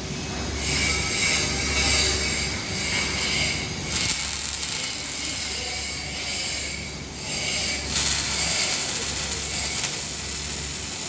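OTC welding robot's MIG arc crackling and sizzling as it lays short welds on steel posts, in runs broken by brief pauses about four and seven seconds in, over a steady low hum.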